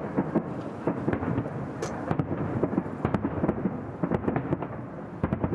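Fireworks salute: many bangs and crackles of bursting shells in quick succession over a continuous rolling rumble.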